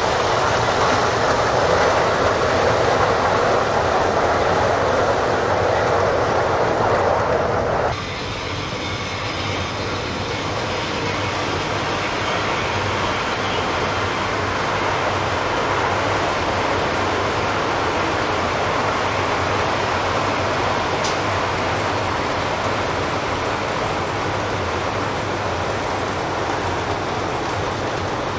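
O scale model trains rolling along the layout's track: a steady rumble of wheels on rail. The sound drops abruptly about eight seconds in, then runs on more quietly.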